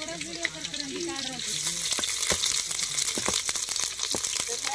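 Hot oil sizzling and crackling in an aluminium pot as spices are tipped in; the sizzle flares up sharply about a second and a half in.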